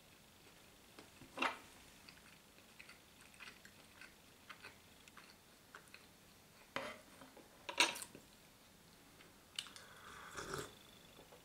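Quiet chewing with small mouth clicks, and a few louder sharp clicks. Near the end come sips and swallows of tea drunk from a glass.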